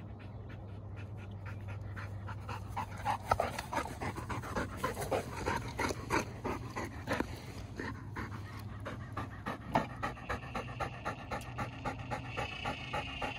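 Golden retriever panting quickly and rhythmically, close up, winded from running after the ball. The breaths grow louder about three seconds in.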